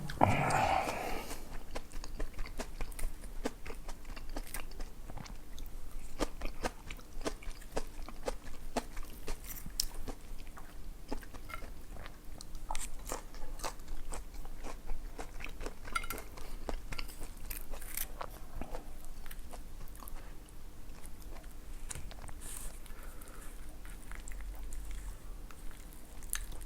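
A person chewing food close to the microphone: continual small crunches and wet mouth clicks. There is a louder burst right at the start.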